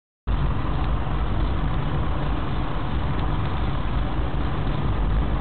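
Steady vehicle engine and road noise, heaviest in the low end, cutting in suddenly a quarter second in.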